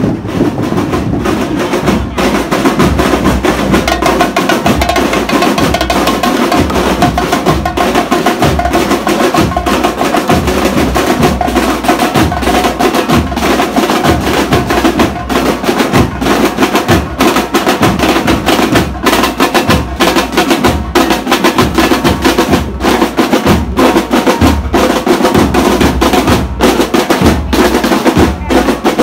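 Marching drum corps playing: snare drums and bass drums beating a steady, driving march rhythm.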